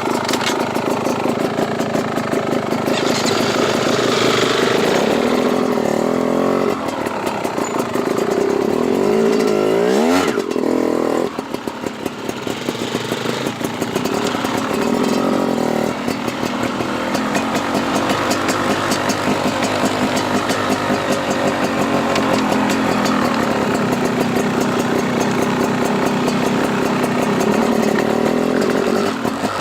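Dirt bike engine running under way, its revs rising and falling with the throttle, with a sharp climb in pitch about ten seconds in and a short drop just after.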